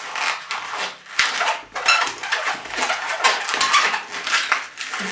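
Latex modelling balloon squeaking and rubbing under the fingers as it is twisted into a large pinch twist at its knot end, in an irregular run of short squeaks.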